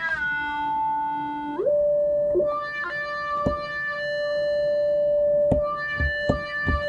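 Synthesized electronic tones of a sound effect being made, played back: a steady held tone that steps up to a higher held pitch about a second and a half in, with a few short clicks in the second half.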